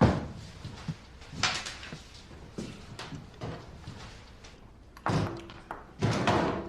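A loud sharp thud at the start, like a door or cupboard shutting, then a smaller knock about a second and a half in and faint clicks and handling noises.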